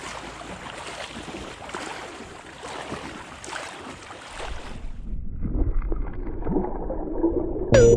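Outdoor water-and-wind noise, the rush of the river with wind buffeting the microphone. After about four and a half seconds it gives way to a muffled low rumble, and electronic music with a beat starts right at the end.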